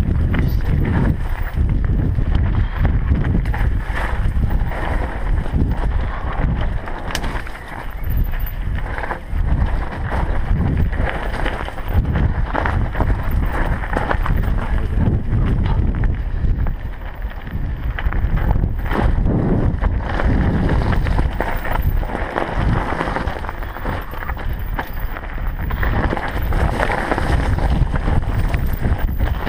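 Mountain bike descending a loose, stony dirt trail: tyres crunching over gravel and rocks and the bike rattling over bumps, with constant wind buffeting on the GoPro's microphone.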